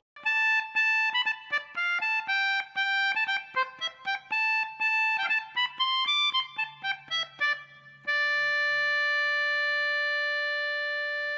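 Background music: a quick melody of short, separate notes, then one chord held for about three and a half seconds from about eight seconds in.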